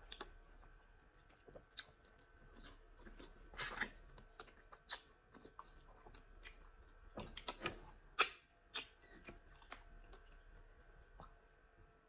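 Close-up eating sounds of starch and pepper soup: soft chewing and small mouth clicks, with a few louder short smacks about 4 and 8 seconds in.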